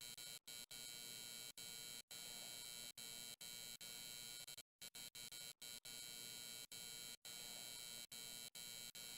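Near silence: a faint, steady electronic hiss with a thin hum in it, cutting out briefly every second or so.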